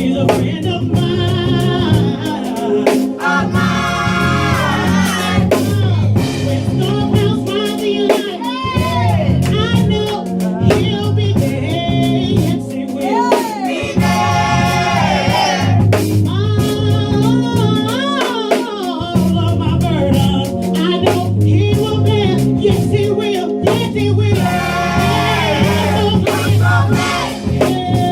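Live gospel worship music: a group of singers with a band, drums and bass keeping a steady beat.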